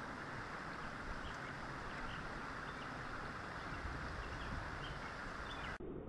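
Steady rush of running creek water, with faint short bird chirps over it. The sound turns duller just before the end.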